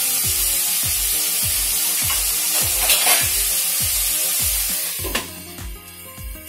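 Sliced onions and green chillies sizzling in hot coconut oil in a kadai. About five seconds in, a glass lid goes on and the sizzle drops sharply to a muffled hiss. Background music with a steady beat runs underneath.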